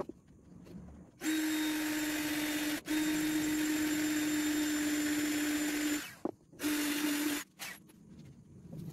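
An electric motor running with a steady hum under a loud rushing hiss. It starts about a second in, drops out for an instant, cuts off around six seconds in, then runs once more for less than a second.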